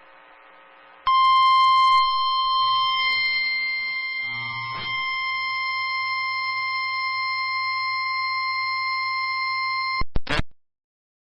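NOAA Weather Radio warning alarm tone: a single steady, shrill 1050 Hz beep that starts about a second in and holds for about nine seconds. It is the alert signal that an urgent warning broadcast follows. Faint radio hiss comes before it, and it cuts off with a brief crackle.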